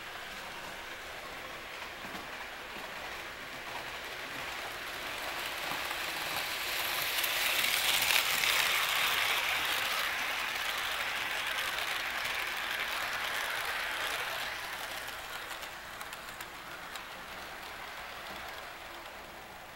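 HO scale model train, a hyrail truck pulling freight cars, rolling along the track past the microphone: a steady rolling hiss that swells to its loudest about eight seconds in and fades as the train moves away.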